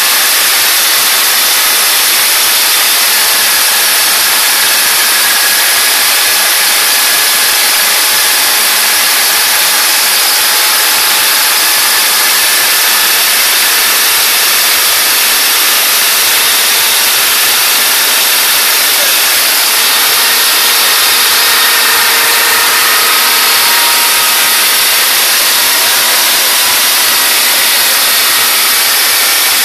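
Engine of a biomass-gasifier generator set running steadily: a loud, even noise with no changes in speed.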